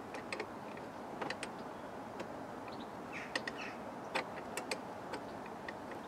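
Irregular light clicks and taps of plastic interior trim being worked into place by hand around the front seat base of a 1988 Austin Maestro, several pieces knocking against each other as they are lined up.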